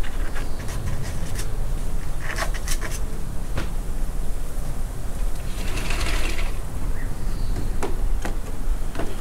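Scattered light clicks and taps, with a short rustle a little past the middle, as a toy poodle puppy mouths and paws at a fabric toy on a wooden deck, over a steady low rumble.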